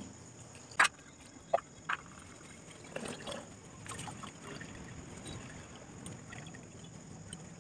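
Faint trickling and dripping of water as a cloth bundle of rinsed chhena curds is wrung out over a steel mesh strainer, after three or four sharp clicks in the first two seconds.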